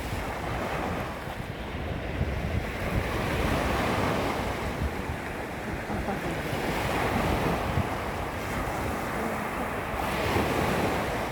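Small waves lapping and washing against the shoreline, swelling and easing every few seconds, with wind buffeting the microphone as a low rumble.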